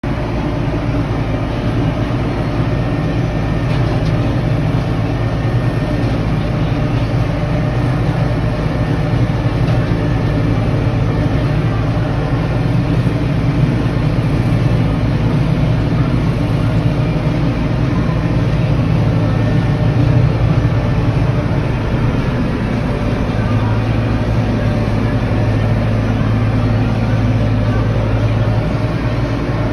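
Massey Ferguson 4707 tractor's diesel engine running steadily under load while it drives a rotary cutter (bush hog) through tall weeds, heard from inside the cab as a constant low hum.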